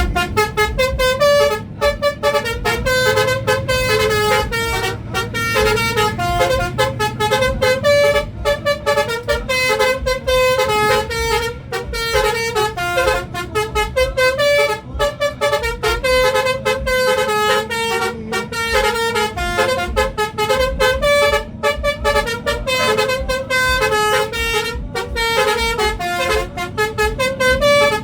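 Telolet bus horn, a set of musical air horns sounded in sequence, playing a long, fast dance tune of short stepped notes.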